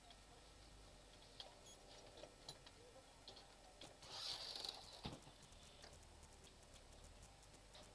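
Near silence with faint scattered ticks, and a brief soft rustling hiss about four seconds in, followed by a single sharp click.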